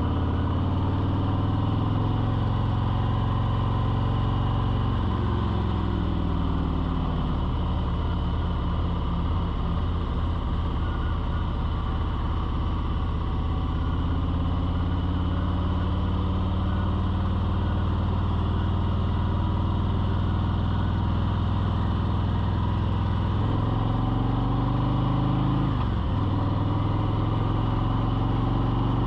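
A motor running steadily, its pitch dipping and rising again a few times.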